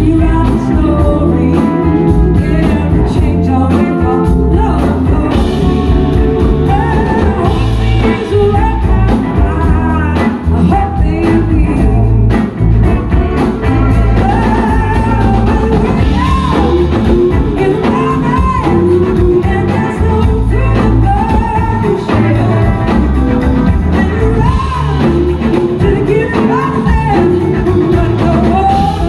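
Live blues-rock band heard through a PA from the crowd: a woman singing lead over electric guitars, bass and a drum kit, with backing singers.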